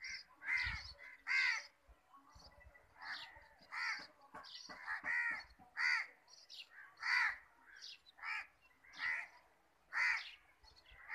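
Crow cawing over and over, about a dozen short harsh caws roughly a second apart, with short high notes between them.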